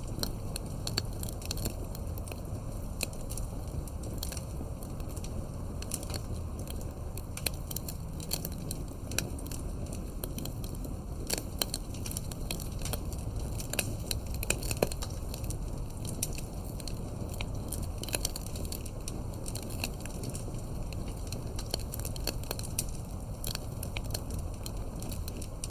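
Campfire crackling: irregular sharp pops and snaps of burning wood over a steady low rumble of the flames, with one louder pop about halfway through.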